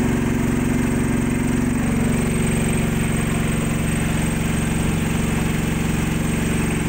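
Thai-made SH15000 9 kVA generator's engine running steadily. Its pitch dips slightly about two seconds in and then holds.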